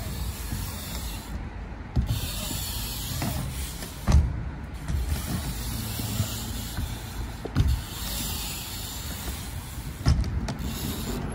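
BMX bike tyres rolling and rumbling across a skatepark ramp, with four sharp thuds spread through as the wheels hit or land on the ramp.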